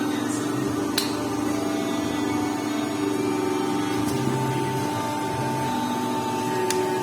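Steady machine hum holding several pitches that shift slightly a few times, with a few faint clicks.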